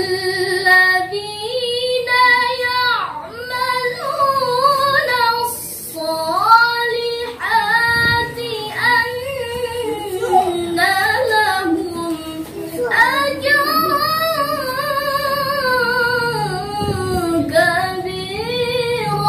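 A young woman's solo voice reciting the Quran in melodic qiraat style: long held notes with wavering, ornamented pitch glides, broken every few seconds by short pauses for breath.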